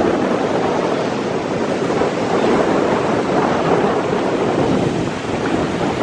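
Ocean surf: small waves breaking and washing up over wet sand at the shoreline, a steady rushing wash, with wind noise on the microphone.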